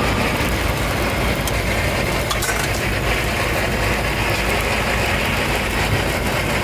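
Steady low rumble of an engine, with a few light clinks.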